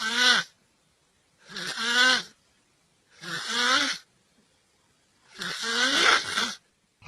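A person snoring in a steady rhythm: four snores about two seconds apart, each rising in pitch, the last one longer than the others.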